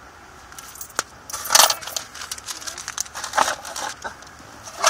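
Change and purchases being handed in through a car window: a sharp click about a second in, then several bursts of rustling and clinking as coins and items are handled.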